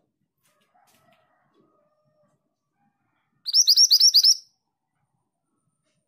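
Caged female minivet calling: a quick run of about seven short, sharp, high notes lasting about a second, about three and a half seconds in.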